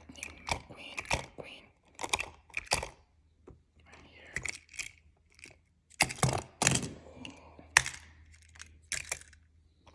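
Small plastic toys being handled: irregular clicks, taps and knocks in short clusters, the loudest a few seconds from the end.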